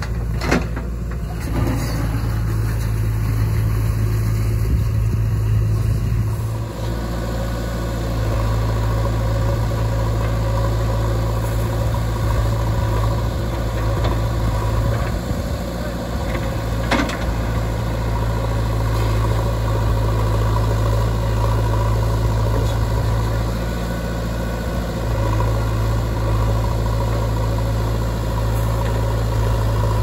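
Diesel engine of a JCB backhoe loader running steadily under working load, its note sagging and picking up again a few times as it digs and swings. One sharp knock sounds a little past the middle.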